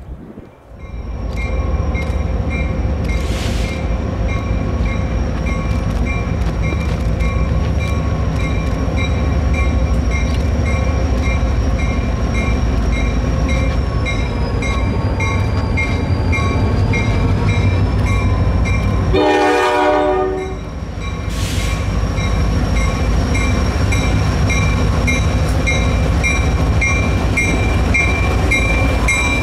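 NYS&W GP40 diesel locomotive hauling a freight train, its engine a heavy steady rumble as it approaches, with a bell ringing about twice a second. About two-thirds of the way through it sounds one horn blast of about a second and a half.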